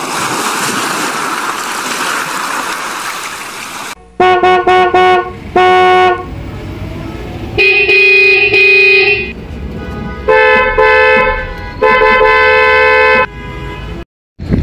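Vehicle horns honking: after about four seconds of steady rushing noise, a quick run of short toots, then longer blasts at two different pitches.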